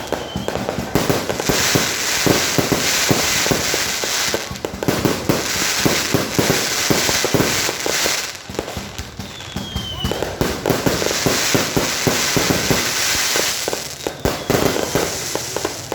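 Fireworks going off in a dense, continuous barrage of cracks and crackling that swells in waves, with a few short falling whistles.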